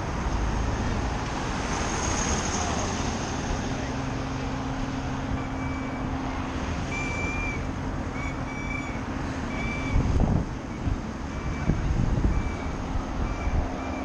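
Motor-vehicle road traffic noise with a steady engine hum. From about five seconds in comes a string of short, high beeps. There are a few low thumps around ten and twelve seconds.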